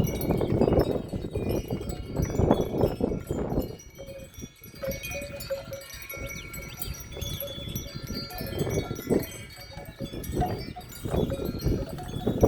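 Gusty wind buffeting the microphone in uneven swells, strongest at the start and again near the end, with metal wind chimes ringing in held tones between gusts.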